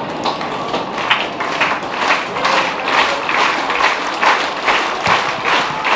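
Spectators clapping, a dense, uneven patter of hand claps that gets louder about a second in.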